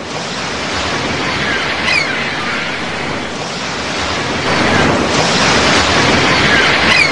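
Ocean surf washing on a beach, a steady rush of waves that swells louder about halfway through.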